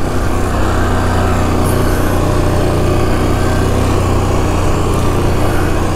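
2008 Yamaha Grizzly 450 ATV's single-cylinder four-stroke engine running at a steady speed.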